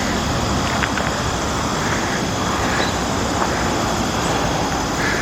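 Steady rushing wind noise buffeting the microphone.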